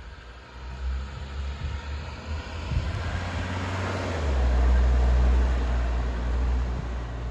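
A 1979 Mercedes-Benz 300SD with its 3.0-litre turbo-diesel inline-five drives past. Its engine and tyre noise builds, is loudest as it goes by about four seconds in, then eases as it pulls away. A heavy low rumble comes up as it passes.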